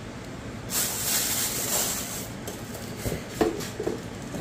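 Plastic packaging wrap rustling as it is handled, a dry hiss for about a second and a half, followed by a few light knocks and clicks.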